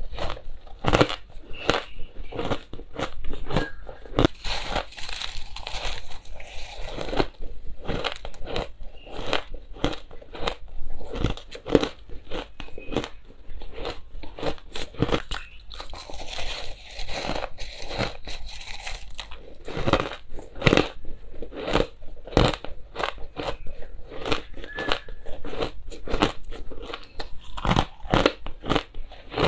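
A person chewing mouthfuls of crushed coloured ice: continuous, irregular crunching, several sharp crunches a second, close to the microphone.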